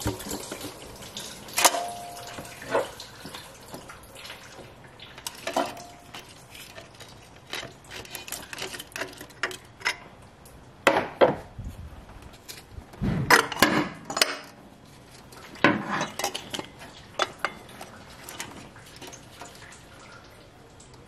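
Irregular metal clinks, knocks and scrapes as the old water pump is worked loose from the 2.4 L Toyota four-cylinder (2AZ-FE) and pulled out, with a couple of short metallic rings early on and a run of louder clatter past the middle.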